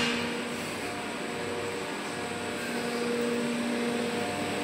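Steady machinery hum and fan noise, with a few faint steady tones that fade in and out.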